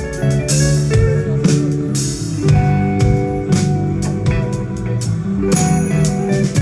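Rock band music with no singing: guitars playing held notes over bass and drums.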